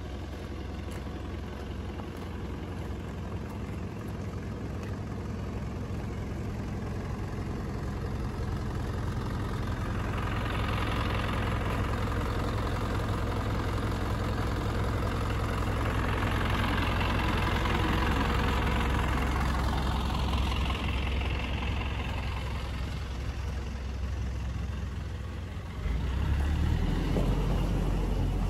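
A motor vehicle passing slowly, growing louder over about ten seconds and then fading, over a steady low rumble. A heavier low rumble comes in near the end.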